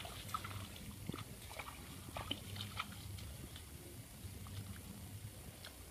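Faint, scattered small splashes of bare feet wading through shallow muddy rainwater, with a few short, faint high-pitched blips between them.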